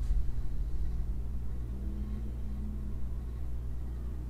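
Steady low rumbling hum of background room noise, with a faint higher tone briefly in the middle.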